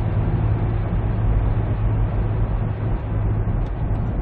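Steady in-cabin drone of a 2002 Hyundai Terracan diesel SUV cruising at about 90 km/h, its engine turning only about 1,700–1,800 rpm: a constant low engine hum under even tyre and road noise.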